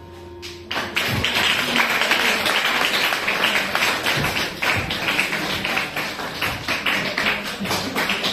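The song's last notes fade out, then a small audience applauds, dense hand clapping starting about a second in.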